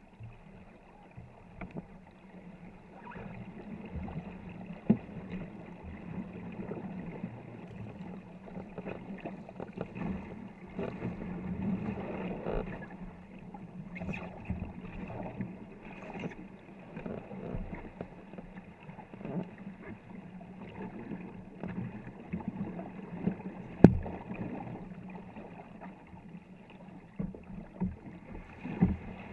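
Several paddlers stroking a 24-foot war canoe hard at racing pace: paddle blades splashing and water rushing along the hull. Scattered sharp knocks, the loudest about three-quarters of the way through.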